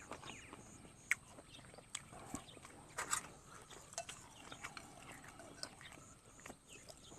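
Faint chewing and lip-smacking of someone eating sticky rice and curry, with scattered short clicks and smacks and a spoon scooping in the bowl.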